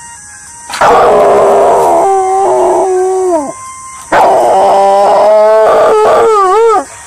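A Rottweiler howling: two long howls of about three seconds each, the second wavering up and down in pitch near its end.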